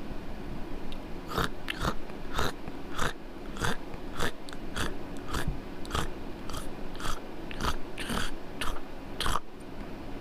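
Footsteps crunching over dry forest floor at a steady walking pace, about two a second.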